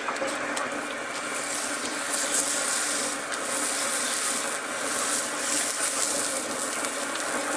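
Raw burger patty of ground beef and Italian sausage sizzling on a hot Blackstone flat-top griddle, the hiss swelling about a second and a half in as the patty is pressed flat.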